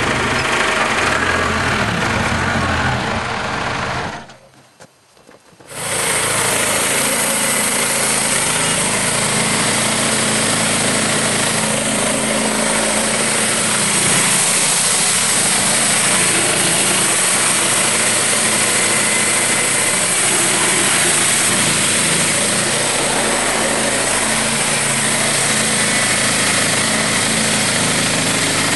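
A backhoe's diesel engine idling, cut off short about four seconds in. It is followed by a band sawmill's engine running steadily while its blade saws through a log, with a strong high-pitched hiss over the engine.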